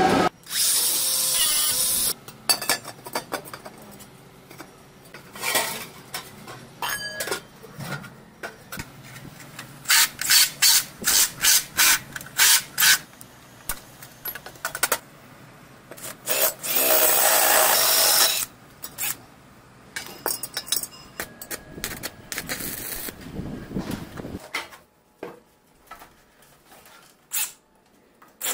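Cordless drill running in repeated short bursts and two longer runs of about two seconds each, among the knocks of sheet-metal parts being handled.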